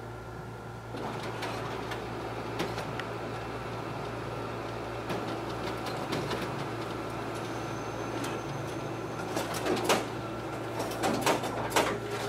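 Toshiba e-Studio colour copier running a two-copy job: a steady running noise starts about a second in, with clicks and clacks of the paper feed throughout and louder clicks near the end.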